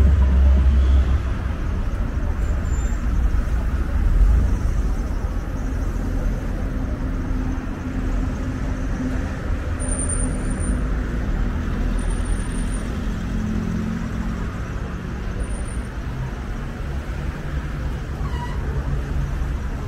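City road traffic: cars and vans driving past with a steady rumble of engines and tyres, and engine hum that rises and falls as vehicles pass.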